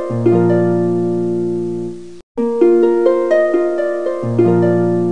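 Background music: a short phrase of plucked, harp-like notes over a held low chord, looping about every four seconds with a brief silent break between repeats.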